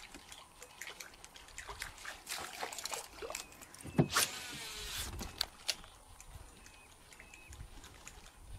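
A baitcasting reel cast: a sharp click about four seconds in, then the spool whirring as line pays out, slowing and falling in pitch over about a second. Before the cast there are faint light water splashes.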